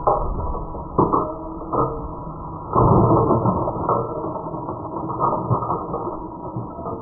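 Catapult launch of an RC model plane: clunks and rattles of the launcher and plane, the loudest a burst about three seconds in, over a steady faint tone from the running motor.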